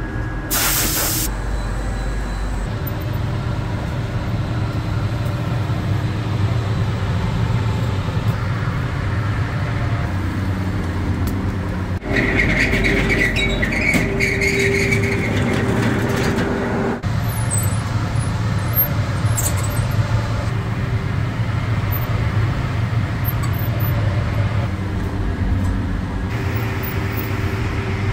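Loud, steady hum and air rush of running workshop machinery. A short hiss comes about a second in, and a higher whine joins in the middle for a few seconds.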